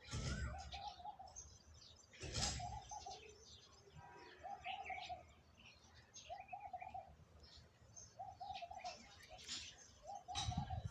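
Birds calling outdoors: a short, bubbling low call repeated about every two seconds, with higher chirps from other birds in between. Brief low rumbles come at the start, about two seconds in, and near the end.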